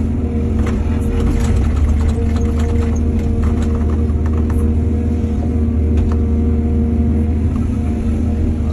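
Heavy diesel engine of an excavator running steadily at working speed. Scattered clicks and rattles come through during the first half, mostly between about half a second and four seconds in.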